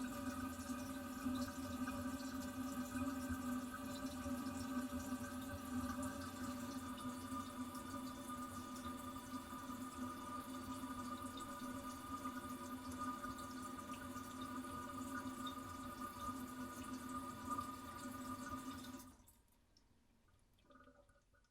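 Toilet cistern refilling after a flush: steady running water with a steady whine from the fill valve, which shuts off abruptly about 19 seconds in.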